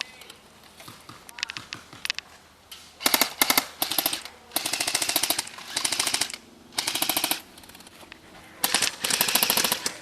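Airsoft guns firing in rapid full-auto bursts, a fast, even string of sharp clicking shots. The bursts come in several runs, the longest lasting about two seconds, with short pauses and a few scattered single shots between them.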